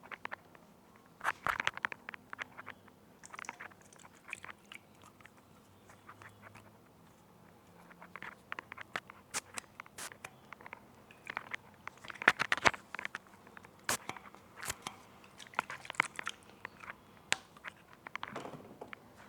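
Crisp crunching, crackling and clicking noises right at the microphone, in irregular bursts with short pauses between them.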